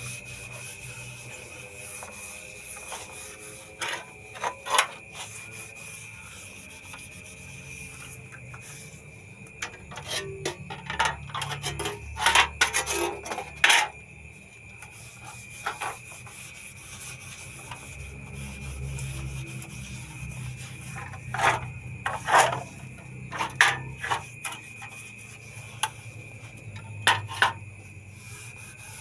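Rubbing and scrubbing on ceiling fan parts during cleaning, in irregular clusters of short scraping strokes, over a steady thin high tone.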